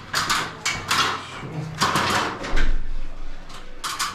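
Plastic edging strip for a stretch ceiling being pressed and worked into its wall profile: a run of short scraping and clicking strokes, the loudest about two seconds in.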